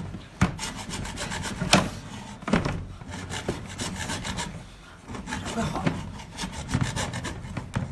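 Hand hacksaw cutting through the hard shell of a large cooked lobster claw in repeated back-and-forth strokes.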